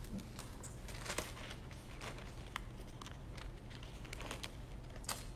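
Faint rustling and a few light clicks of Bible pages being turned and handled at a pulpit, over a low steady room hum.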